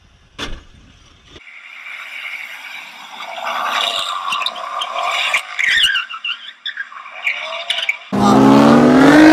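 Cut-together clips: a low rumble with a single knock under a second in, then a high, wavering sound that builds in loudness for several seconds. From about 8 s in, a loud sports-car engine revs hard, its pitch climbing.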